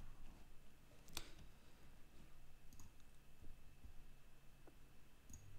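A few faint computer mouse clicks, the clearest about a second in, over a low steady hum.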